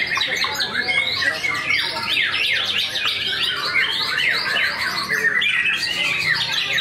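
White-rumped shama (murai batu) singing: a fast, unbroken stream of short sweeping whistles, chirps and harsh notes.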